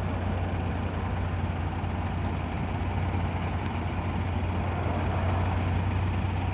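Large delivery truck's engine idling steadily, a low hum under a rumbling noise.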